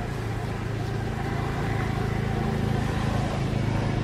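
An engine running steadily, a low hum that grows slightly louder over the few seconds.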